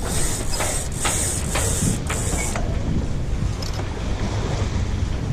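Mainsail halyard being hauled up in rhythmic pulls, rasping through its blocks about twice a second, stopping about two and a half seconds in. Wind and water wash past the hull.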